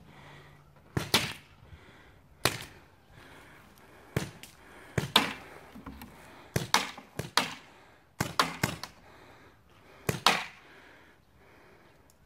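Paintball markers firing: a dozen or so sharp pops, spaced irregularly as single shots and quick pairs.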